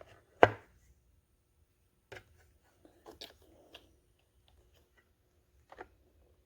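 A few scattered handling clicks and knocks in a small room, the sharpest about half a second in, with quiet between them.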